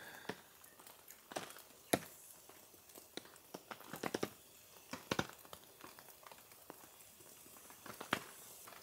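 Campfire crackling quietly, with scattered sharp pops a second or so apart.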